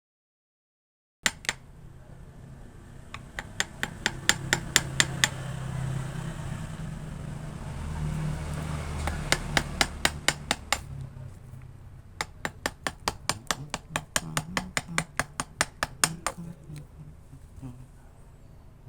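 Runs of sharp, quick taps, about four a second, from a hand tool working the wood at a sawn cut on a Premna bonsai trunk. The taps come in three bursts with short pauses between.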